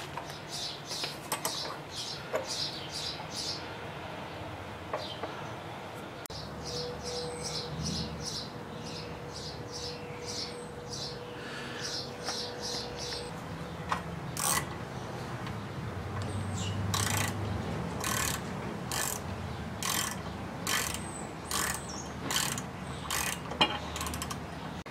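Ratchet wrench clicking in short runs as bolts are tightened on a long-tail mud motor's drive housing fitted to a Honda GX200's crankshaft.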